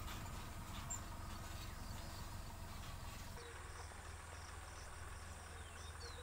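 Quiet rural outdoor ambience with a faint low rumble throughout. From about three seconds in, an insect chirps in a steady, evenly pulsing rhythm, and a bird gives a short call near the end.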